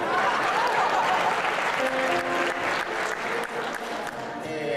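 Audience applauding, strongest at the start and thinning toward the end, with steady held notes from an electronic keyboard underneath from about two seconds in.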